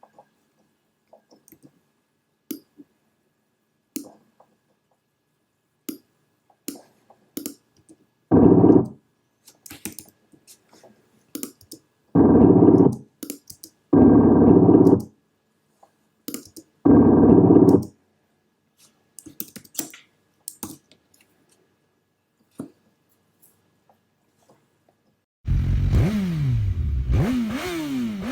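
Sparse short audio clicks, with four abrupt one-second blasts of a steady buzzy synthesizer tone, then near the end electronic synthesizer music with repeated falling sweeps.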